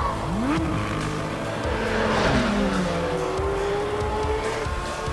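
Porsche 718 Cayman GT4 RS's naturally aspirated flat-six running hard on track, its pitch climbing sharply about half a second in, dropping around two and a half seconds in, then climbing again, with music underneath.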